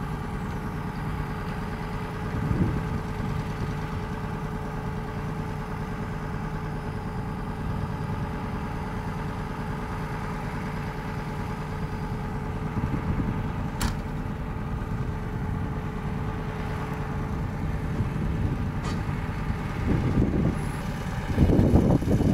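Heavy diesel engine idling steadily, with a faint steady whine over it that stops shortly before the end. A louder, uneven sound rises near the end.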